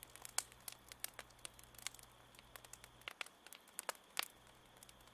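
Wood fire crackling faintly, with small irregular pops and snaps from burning logs.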